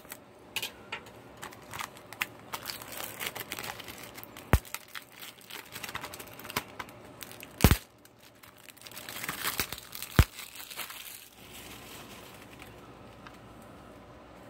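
Plastic shrink-wrap being slit and peeled off a Blu-ray case: crinkling and tearing with a few sharp snaps, the loudest about eight and ten seconds in. It dies down after about eleven seconds.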